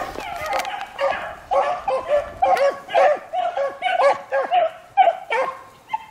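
Pack of beagles baying on a rabbit's trail: a fast run of short bays, about three a second, with several hounds' voices overlapping.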